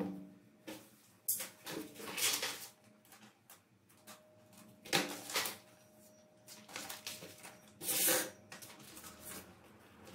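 Thin clear plastic sleeve rustling and crinkling as it is handled, in several short separate bursts.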